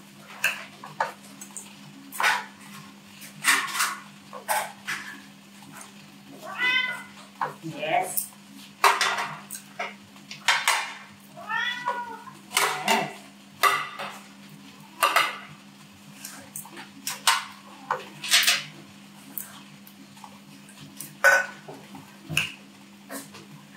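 Fork and knife clinking and scraping on a ceramic plate while metal trays and plates are set down on a stone countertop. Partway through, a cat meows a few times, waiting to be fed.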